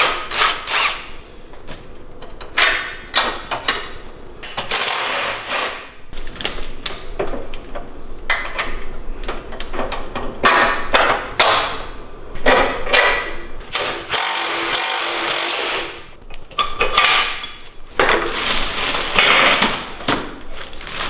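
Tool noises as a mini bike's parts are bolted on: irregular bursts of wrench clicking and metal knocking, each lasting a second or two, with one steadier run of about two seconds a little past the middle.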